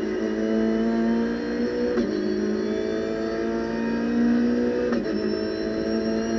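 Renault Clio Cup race car's four-cylinder engine heard from inside the cockpit, accelerating at full throttle with the pitch climbing steadily, and upshifting twice, about two and five seconds in, each shift dropping the revs before they climb again.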